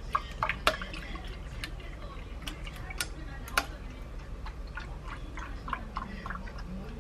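Almond milk pouring from a carton into a glass of ice cubes, with scattered sharp clicks and crackles from the ice as the liquid fills the glass.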